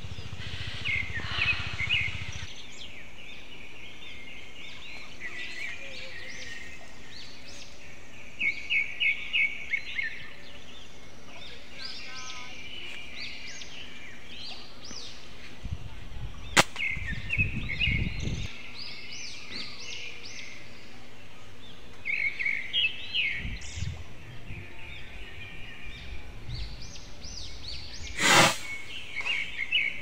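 Small birds calling in the trees throughout, in quick runs of short chirps. About halfway through, a single sharp snap of a slingshot being shot, and near the end a brief rush of noise.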